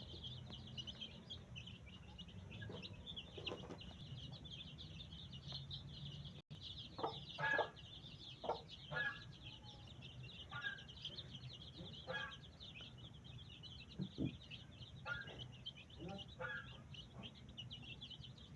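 Domestic fowl clucking in short calls, a dozen or so, mostly between about seven and seventeen seconds in, over a steady dense chorus of high chirping.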